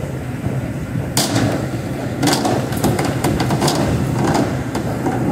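Irregular knocks and clanks of metal pans and cans being handled on a kitchen counter, starting about a second in, over a steady low hum from the exhaust hood fan.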